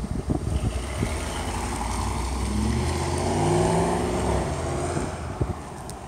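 Ford F-150's 5.4 L three-valve V8 running through its exhaust, rising in pitch and loudness to a peak a little past halfway, then falling away.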